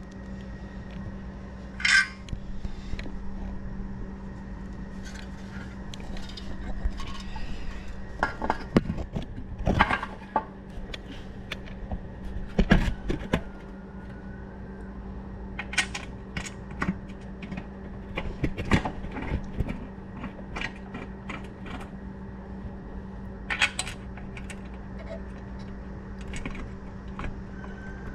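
Hand tools and metal parts clinking and knocking now and then while a mini bike's exhaust is being fitted, with a steady low hum underneath.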